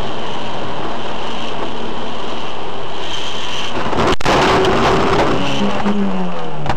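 Loud, steady hiss of rain and wet-road noise picked up by a dashcam microphone inside a car, even in level throughout.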